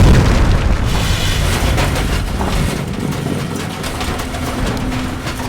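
Film action soundtrack: the heavy low rumble of a rocket blast dying away, mixed with vehicle noise, scattered debris-like impacts and score. A steady low tone comes in about three and a half seconds in.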